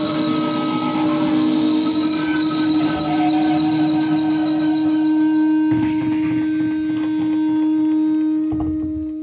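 Guitar amplifier feedback held as a loud, steady drone of several sustained tones, with a high whine on top. The low end drops away and the drone thins out near the end.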